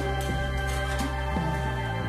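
Background music: a slow, gentle instrumental with held notes.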